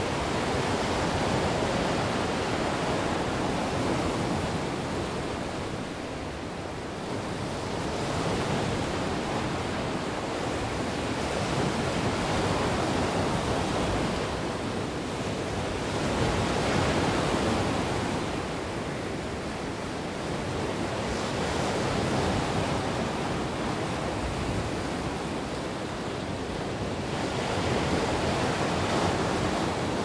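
Sea waves breaking and washing over a shore of rounded stones, the surf swelling and easing every few seconds.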